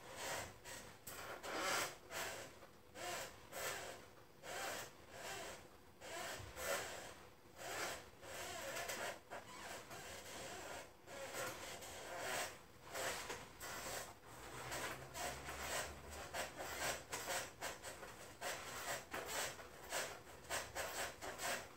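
Hands, clothing and the treatment table's cover rubbing and rustling in short, irregular strokes as a patient's hip is worked by hand, the leg held flexed and pressed and pulled along its length.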